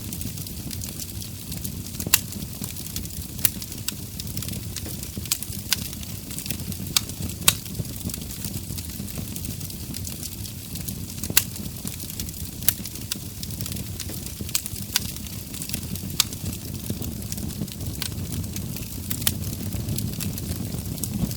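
Wood fire burning in a brick fireplace-stove: a steady low rumble of the flames with sharp crackles and pops from the logs at irregular intervals.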